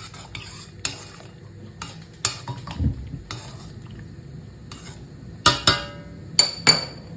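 A spoon stirring liquid in a saucepan, with light scrapes and clicks against the pot. Near the end come four sharp metal clinks in two pairs, each ringing briefly.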